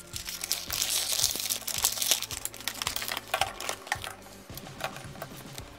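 Close rustling and crinkling handling noise with many small plastic clicks, loudest in the first three seconds and thinning out to scattered clicks after.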